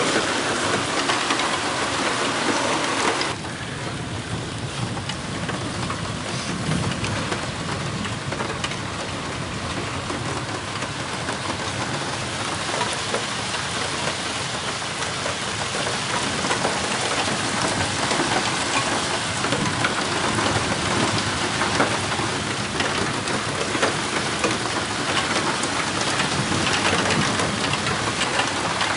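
Heavy cloudburst rain pouring steadily, a dense hiss of water hitting surfaces, dropping suddenly in loudness about three seconds in.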